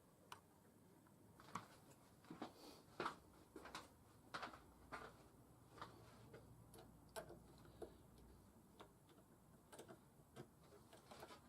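Faint, scattered clicks and light knocks at uneven intervals, from small hard objects being handled.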